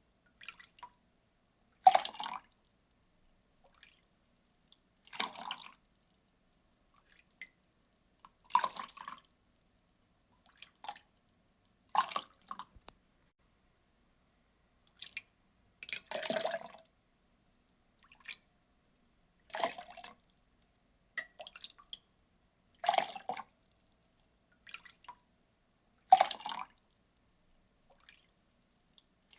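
Water poured in short splashes, a louder one about every three and a half seconds with fainter splashes between.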